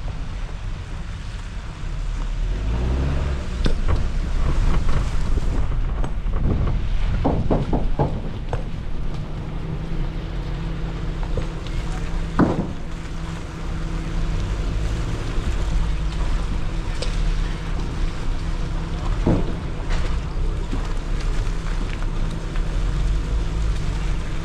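Suzuki Jimny's engine running at low revs off-road, its pitch stepping up about three seconds in, with sharp knocks and rattles: a cluster around seven to eight seconds, then single ones later.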